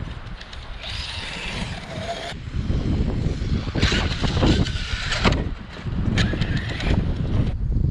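Heavy wind rumble on the microphone, with an Arrma Kraton 6S RC car's electric motor and tyres hissing in three separate bursts, each stopping suddenly.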